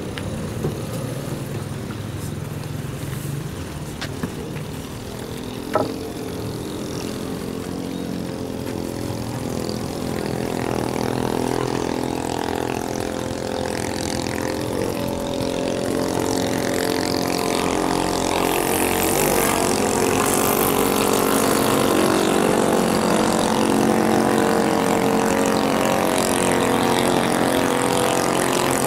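6.5 hp clone engine, a single-cylinder four-stroke, running hard on a mini power boat, growing steadily louder as the boat comes close, with water spray hissing over it in the second half. A single sharp knock about six seconds in.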